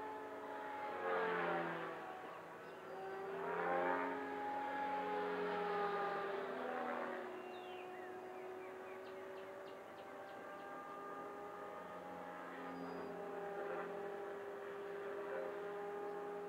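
Electric radio-controlled model aircraft, motor and propeller whining as it flies. Its pitch swoops up and down through three quick low passes in the first seven seconds, then it holds a steadier, quieter drone farther out.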